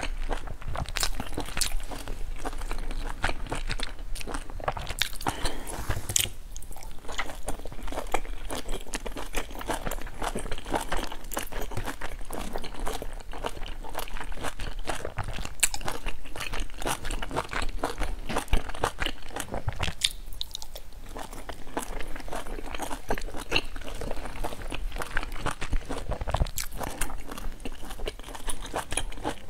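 Close-miked eating of large dumplings: biting and chewing, with many small wet mouth clicks throughout.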